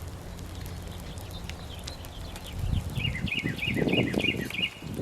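A songbird calls a quick run of about six identical short chirps, starting about three seconds in. Under the chirps comes a louder burst of low, noisy rumbling that stops near the end.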